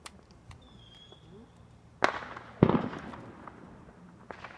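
Two firework bangs about half a second apart, the second the louder, each trailing off in a rumble of echo.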